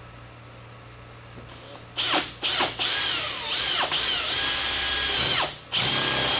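Cordless drill with a 5/8-inch spade bit boring through the plastic wall of a gas can. About two seconds in come a few short blips of the trigger, then a longer run with the motor whine dipping and rising under load. It stops briefly near the end and runs again.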